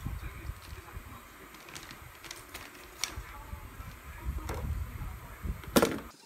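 Plastic food packaging rustling and crinkling as packs are handled in a styrofoam box, with scattered sharp clicks and one loud knock near the end.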